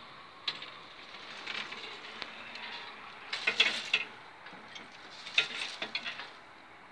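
Level crossing barrier arms lifting: a run of mechanical clicks and rattles from the barrier drives and booms, loudest in two clusters about three and a half seconds in and again at five and a half seconds, over a steady hiss.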